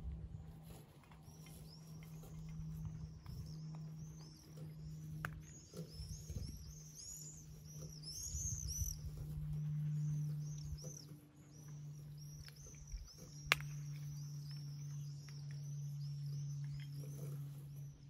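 Small birds singing, a steady run of short, high, repeated chirps, over a steady low hum. A single sharp click sounds a little past the middle.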